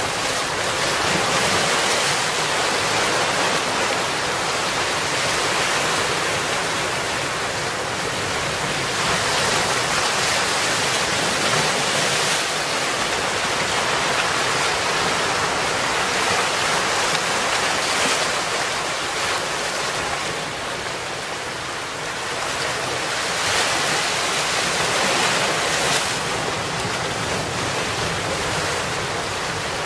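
Sea surf breaking and washing among shoreline rocks, with wind: a steady rushing that swells and eases slowly.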